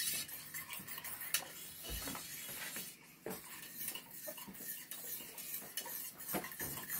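A whisk stirring thickening pudding custard in a stainless steel saucepan, with irregular scraping and clinks of metal against the pot. The custard is cooking on the stove and is nearly thick enough.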